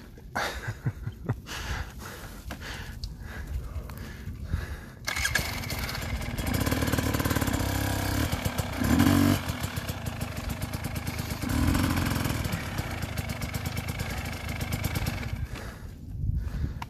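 KTM enduro dirt bike engine comes in suddenly about five seconds in and runs with a fast, even firing beat, swelling louder twice as the throttle is opened. Before it, a few scattered knocks.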